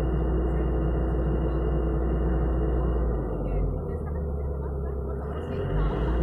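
Hitachi mini excavator's diesel engine running with a steady low drone. About three seconds in its low note shifts and the level dips slightly, then it returns near the end, as the engine's load changes.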